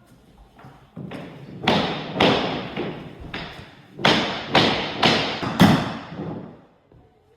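A run of about ten loud knocks, irregularly spaced roughly half a second apart, each with a short ringing tail. It sounds like building work on a house under construction.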